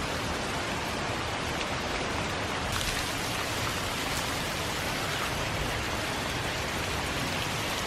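Steady rush of water from small waterfalls spilling down a rock bluff, swollen by a recent storm.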